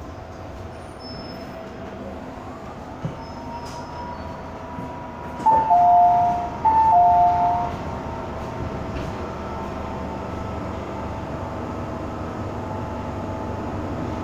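MTR M-Train electric multiple unit running, heard from inside the carriage: a steady rumble of wheels and running noise with a faint motor whine. About five and a half seconds in, a loud two-note tone, high then low, sounds twice in quick succession.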